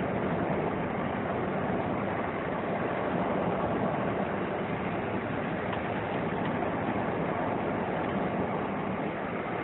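Steady road and engine noise of a vehicle driving along a road, heard from on board, an even rumble and rush that does not change.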